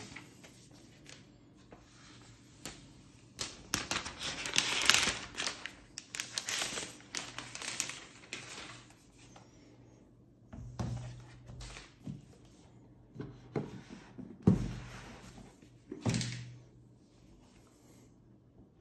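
Rustling and crinkling of packaging paper being handled, followed by a few soft knocks as the laptop and its box are moved and set down on a wooden desk.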